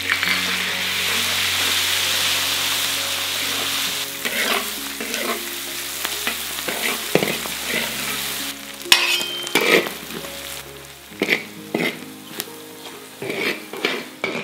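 Chili paste and spices frying in hot oil in a wok, loud and steady for the first few seconds. The sizzle then drops as a metal ladle stirs and scrapes against the wok, with a series of sharp clanks.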